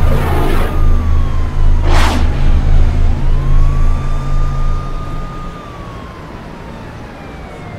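Siren wailing, its pitch rising and falling slowly twice, over a heavy pulsing low rumble that fades out about five seconds in. A single whoosh sweeps through about two seconds in.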